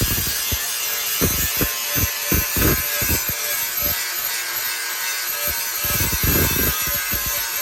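A hand tool rasping in irregular strokes, roughly two a second with pauses, over a steady hiss.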